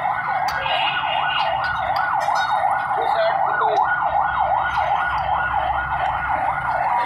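An electronic siren wails up and down about twice a second at a steady level and cuts off abruptly near the end, with a few light metal clinks of engine parts being handled.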